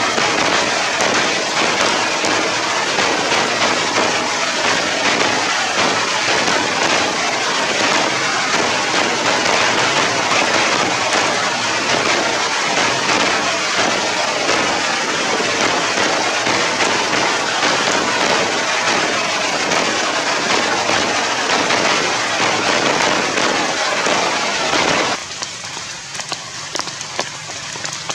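Steady heavy rain falling, a dense hiss of drops. About three seconds before the end it drops off abruptly to a much quieter patter.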